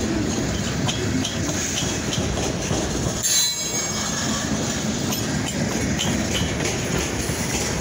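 Freight train's covered hopper cars rolling past close by: a steady rumble of steel wheels on rail with repeated clacking. A brief high-pitched sound comes about three seconds in.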